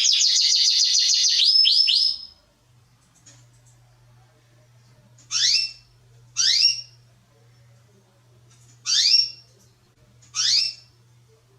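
Domestic canary singing a fast trill of repeated notes that ends about two seconds in. Four single rising call notes follow, spaced a second or more apart, over a faint low hum.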